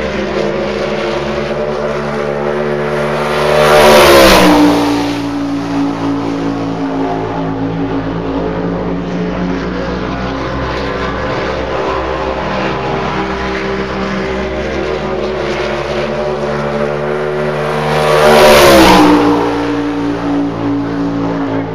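Race car at speed on track, passing close by twice about fourteen seconds apart, its engine note dropping sharply in pitch as it goes past. Between the passes it is heard more faintly, running steadily around the rest of the track.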